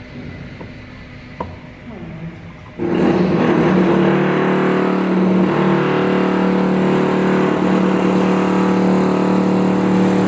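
Construction work in the building: a loud, steady machine noise starts suddenly about three seconds in and runs on without a break.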